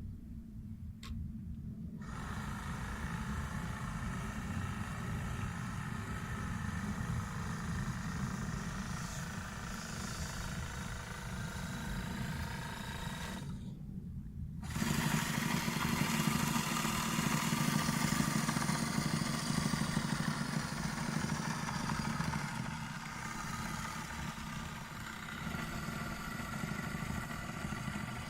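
Motor of a radio-controlled model purse-seine fishing boat running steadily, with a higher whine above a low hum. The whine drops out briefly near the start and again about halfway through, then comes back louder.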